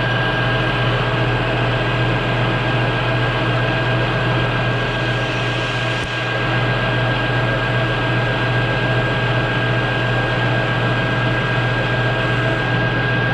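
Grizzly G0776 metal lathe running steadily while taking a turning pass on a stepped sleeve: a constant drone from the motor and drive with a thin, steady high whine over it.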